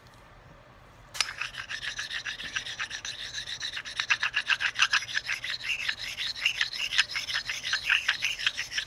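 A sharpening stone rubbed dry by hand against the steel shift drum of a Buell Blast, stoning down a burr on the drum. Quiet for about the first second, then steady scraping that turns into quick back-and-forth strokes, about three a second.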